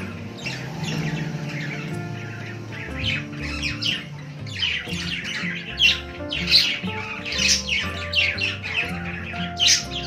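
Several pet budgerigars chattering in fast runs of short, high chirps and squawks that grow busier and louder a few seconds in. Soft background music plays under them.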